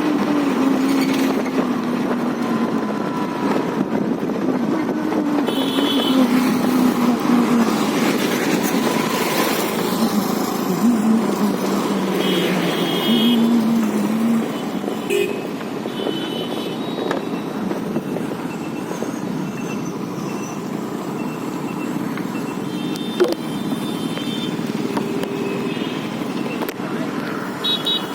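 Steady road and wind noise from riding a motor scooter through traffic, with a low engine hum wavering in pitch through the first half and a few short high beeps.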